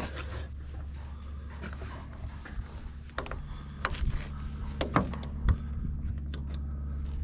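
Diesel engine of farm machinery idling steadily, with a few sharp knocks and clicks about three to five and a half seconds in.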